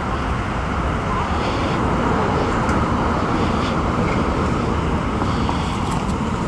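Steady rumble of street traffic.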